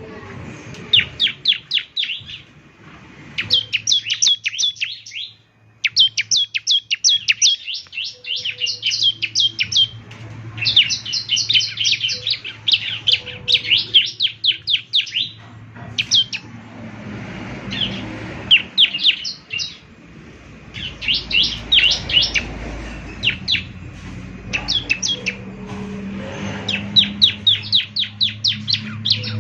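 Bar-winged prinia (ciblek) song: rapid strings of sharp, downward-slurred chirps, several a second, in bursts of one to three seconds with short pauses between, over a faint low steady hum.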